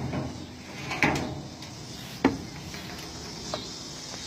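Metal clunks and knocks from the old truck's side toolbox compartment being handled: three separate knocks, the loudest about a second in, a sharp one just past two seconds and a small one near the end. Crickets chirr steadily behind.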